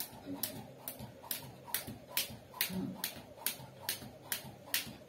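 Skipping rope slapping a concrete floor on each turn: a steady beat of sharp clicks, about two and a half a second, from a speed jump rope workout.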